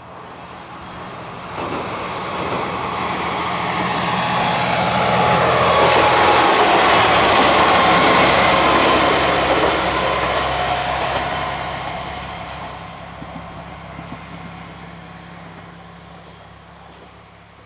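JR KiHa 120 diesel railcar passing overhead on a viaduct: engine and wheel-on-rail noise build over several seconds, peak, then fade away, with a tone that drops in pitch as it passes.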